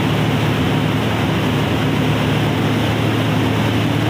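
Tractor-driven rice mill with a double jet polisher running under power, a steady, even machine drone from the tractor engine and the milling and polishing machinery together.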